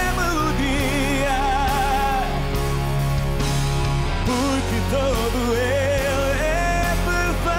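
Male singer holding long, wavering melodic vocal lines with vibrato, backed by a live pop-rock band with electric guitar and steady bass notes.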